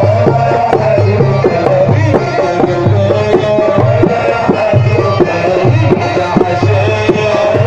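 Live Port Said simsimiyya music: a quick plucked melody on the simsimiyya lyre over hand-drum rhythm and a repeating low bass line, with no singing.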